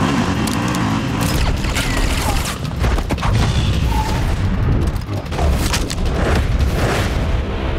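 Action-film soundtrack: a dense, loud mix of heavy low booms and repeated sharp hits.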